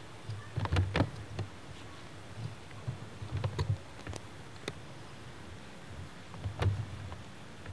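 Handling noise on a camcorder's built-in microphone as the camera is carried and panned: irregular clicks and soft thumps in clusters, about a second in, around three and a half to four and a half seconds in, and near the end.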